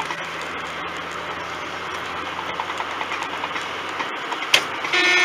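Steady road and engine noise heard from inside a car cruising on a highway, with a car horn starting to sound near the end.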